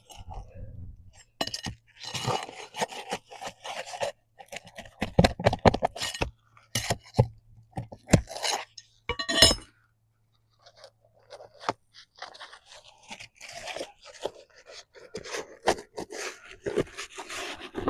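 A hand tool scraping and clinking against asphalt shingles and roofing nails in irregular strokes, as stubborn nails are worked out of the shingle. There is a brief pause about ten seconds in.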